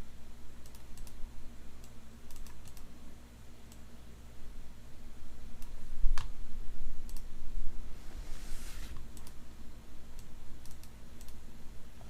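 Sparse light clicks and taps on a desk, with a short rustle about eight to nine seconds in and a sharper tap about six seconds in.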